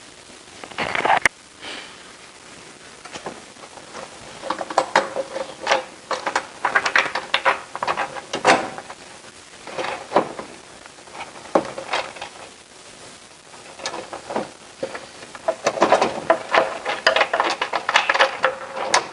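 Irregular clicks, taps and clatter of hands working on a 17.5-inch truss Dobsonian telescope, handling its wooden upper cage and metal truss fittings. The knocks come closer together near the end.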